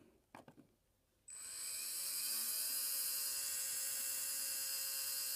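R1 Wurks 21.5-turn sensored brushless RC motor, its can timing set at zero, spun up with no load by a motor analyzer: a whine that starts about a second in, rises in pitch for about a second and a half, then holds steady as the motor runs at speed.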